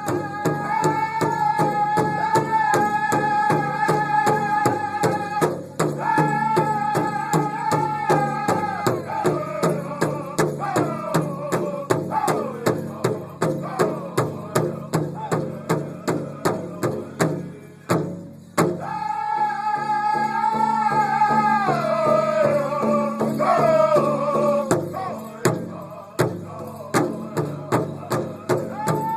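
Powwow drum group singing in unison in high, strained voices over a big drum struck in a steady, even beat. The singing breaks off briefly just past halfway, and a new high line starts.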